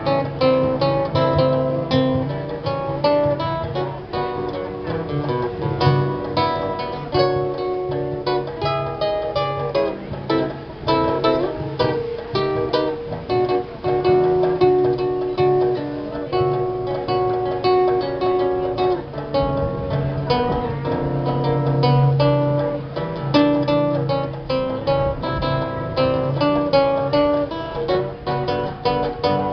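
An ensemble of many acoustic guitars playing a samba together, a melody of plucked notes over a steady strummed accompaniment and bass line.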